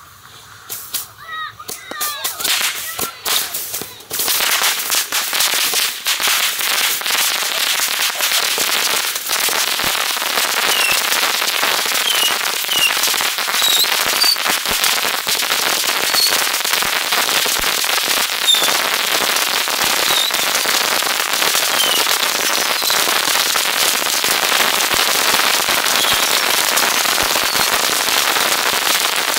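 A homemade launcher box of bottle rockets going off en masse. A few pops and whistles come first, then from about four seconds in a dense, unbroken crackle of small bangs with short rocket whistles scattered through it.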